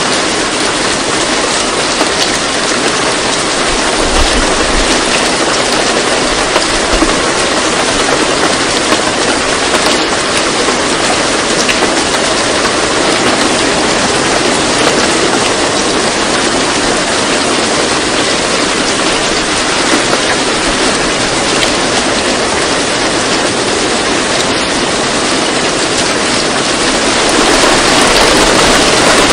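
A loud, steady rushing noise like heavy rain, with no tune or audible speech, turning a little louder near the end. It is the kind of masking background that subliminal videos lay over their quiet affirmations.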